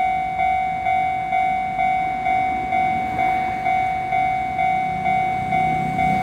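Japanese level-crossing warning bell ringing at a steady beat of about two strikes a second, each ring fading before the next. A low rumble of an approaching train builds up under it in the last seconds.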